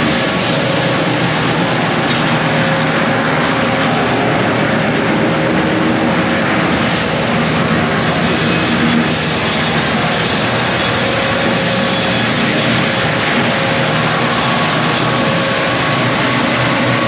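Big band saw head rig at a sawmill running: a loud, steady machinery noise with a high hiss that shifts a little partway through.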